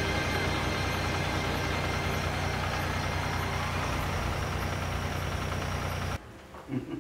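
Dark, droning film soundtrack music that cuts off suddenly about six seconds in, leaving faint small knocks.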